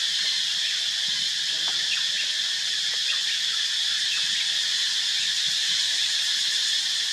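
Steady high-pitched drone of an insect chorus, holding an even level throughout.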